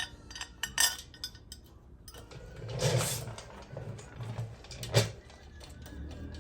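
Metal parts and hand tools being handled during engine assembly: a few sharp clinks and knocks, the loudest about five seconds in, with a brief rustle about three seconds in.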